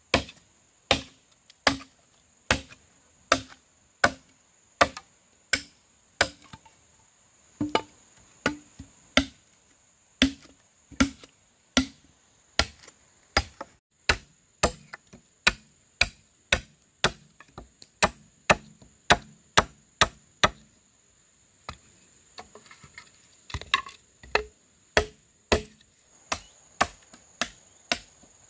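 Machete chopping into bamboo: repeated sharp, hard strikes at about one and a half a second, with a brief pause about two-thirds of the way through before the chopping resumes.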